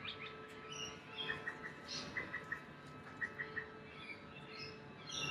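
Faint bird chirping: short high notes in quick runs of three or four, repeated a few times.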